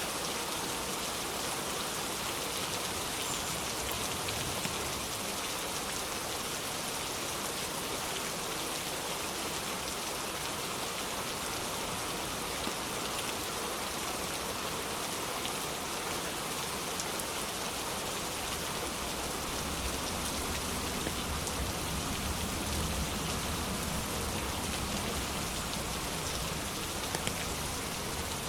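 Steady rain falling, an even patter with no pauses. About two-thirds of the way through a low rumble swells underneath it, distant thunder.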